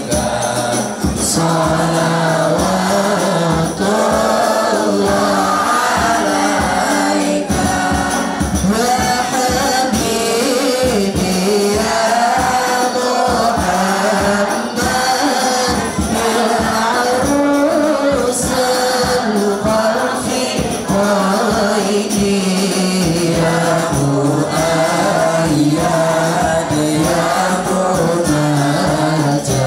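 A hadrah ensemble: boys' voices singing an Islamic devotional song together, a lead voice on a microphone, over hand-struck rebana frame drums beating a steady rhythm.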